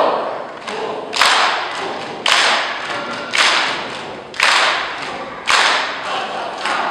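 A group beating out a rhythm together with body percussion, most likely hand claps in unison: five loud hits about once a second, each one echoing briefly in the large hall.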